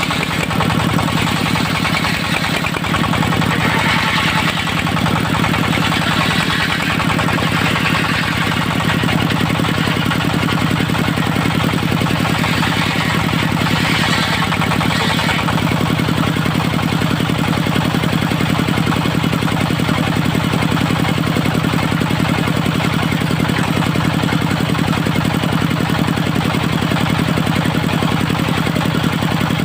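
The engine of a portable circular-saw sawmill running steadily, with swells of a hissier, higher sound in the first half that then settle into an even hum.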